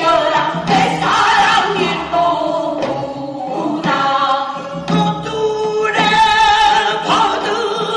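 Korean folk song in the Gyeonggi minyo style, sung with a wavering vibrato over instrumental accompaniment.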